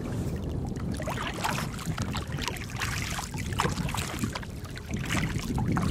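Wind buffeting the microphone in a low rumble while a kayak is paddled into the wind, with irregular splashes of the paddle blades in the water.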